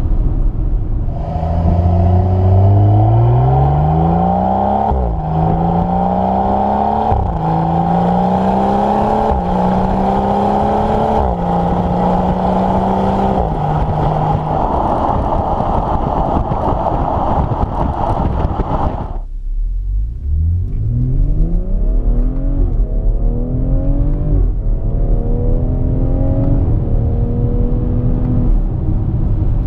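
2018 BMW X3 M40i's turbocharged 3.0-litre inline-six under hard acceleration. It climbs steeply in revs, then runs through a string of quick upshifts, each a sudden drop in pitch before climbing again. It breaks off abruptly about two-thirds in, and a second full-throttle run through several upshifts follows.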